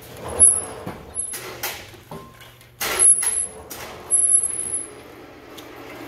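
Hand-operated lever drum pump on an oil drum being worked, its handle strokes knocking, with a short high squeak on several strokes and one longer squeal about four seconds in.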